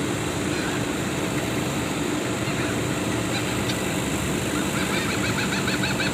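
Steady background rumble like distant traffic; a little before the end a small bird starts calling loudly in a fast run of repeated chirping notes.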